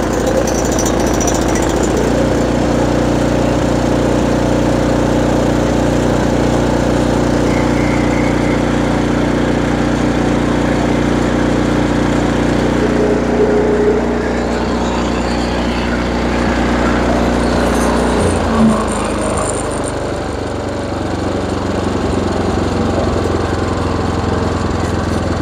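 Briggs & Stratton 1450 Series 305 cc snowblower engine running steadily on its newly fitted replacement carburetor. Its note shifts and briefly dips in loudness about three-quarters of the way through.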